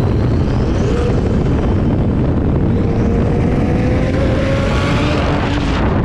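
Big-turbo BMW 335i's turbocharged straight-six pulling hard at speed, its note climbing steadily for about four seconds, then dropping near the end, over heavy wind and road noise.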